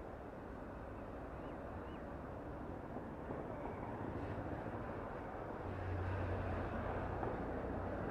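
Road traffic passing close by: vehicle engines running over a steady road noise, with a deeper engine hum growing louder in the second half as a heavier vehicle comes past.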